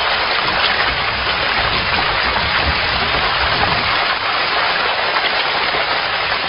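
A packed mass of fish in a feeding frenzy, splashing and thrashing at the water's surface around a lump of food: a dense, steady wash of splashing.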